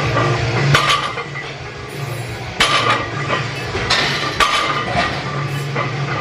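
Iron barbell plates clanking during sumo deadlift reps: several sharp metallic hits with a short ring, a second or two apart.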